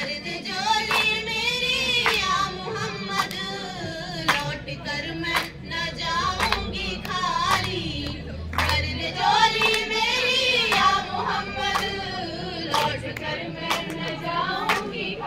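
A group of girls singing a qawwali together, the melody wavering and held on long notes, with the group's hand claps keeping a steady beat of about one clap a second.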